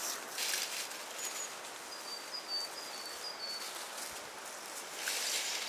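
Dry leaf litter rustling in short bursts, once just after the start and again about five seconds in, as Japanese macaques move about in it. Through the middle, a bird calls in a quick run of short high notes over a steady outdoor hiss.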